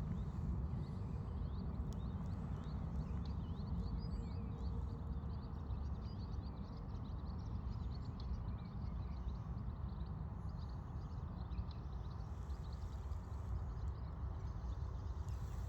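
Whinchat calling with many short, quick high chirps over a steady low rumble.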